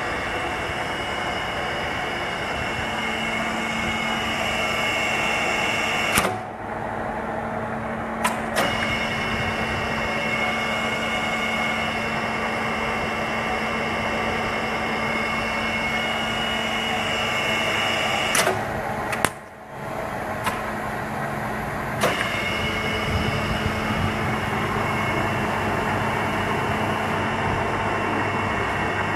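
1967 Niigata 2UMA milling machine running under its electric motors: a steady hum with a low tone and a higher whine. The whine cuts out twice, for about two seconds and about three and a half seconds, with a click at each stop and start.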